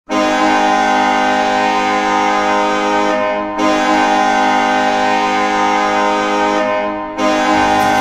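Ice hockey goal horn sounding three long, steady-pitched blasts of about three and a half seconds each, separated by brief dips, with the third blast still going at the end.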